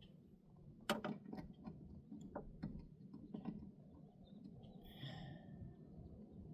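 Faint scattered clicks and taps of hand tools and metal parts being handled while mounting a car door's window regulator motor, with one sharp click about a second in and a brief rasp around five seconds.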